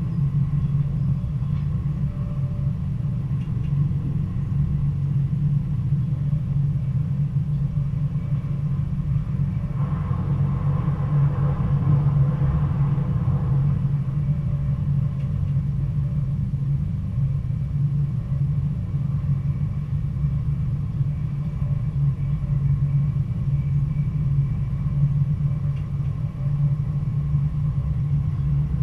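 Stadler GTW diesel-electric multiple unit running along the line: a steady low drone of the engine and wheels on the rails, with a brief swell of higher-pitched running noise around the middle.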